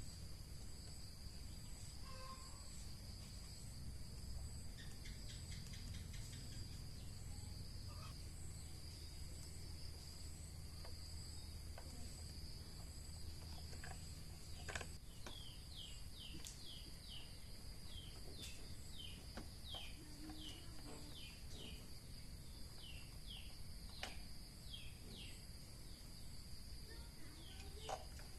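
Insects trilling in a steady high drone, with a run of short repeated chirps through the second half. A low hum underneath stops about halfway through.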